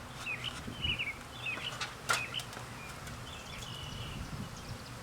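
Birds chirping: a series of short, high, twisting calls, with one sharp click about two seconds in.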